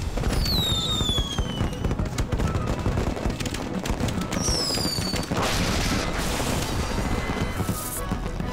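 Cartoon fireworks effects: two falling whistles, one near the start and one about four and a half seconds in, amid a run of pops and crackling bursts, with music underneath.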